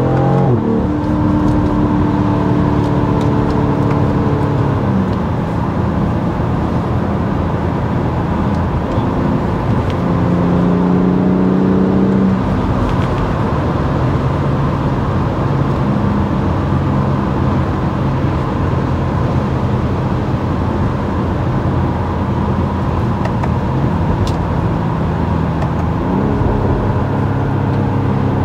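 2021 BMW X3 M40i's 3.0-litre twin-scroll turbocharged straight-six and stock exhaust heard from inside the cabin while driving, over steady tyre and road noise. The engine note rises under throttle about ten seconds in and again near the end.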